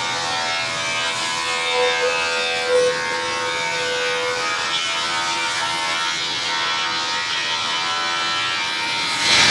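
Straight-line rip saw running with a steady, many-toned hum.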